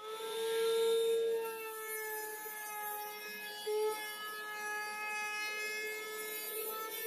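Table-mounted wood router running at a steady high whine while the edge of a round plywood disc is fed past its bit, the cut adding a rough rasping noise.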